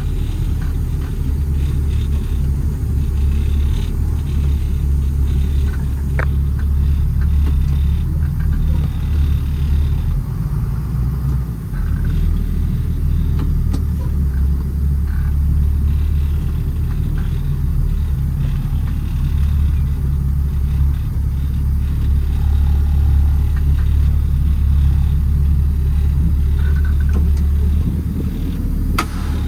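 Cabin sound of a Cummins 5.9 ISB diesel truck driving: a steady low engine rumble with road noise, dipping briefly about eleven seconds in.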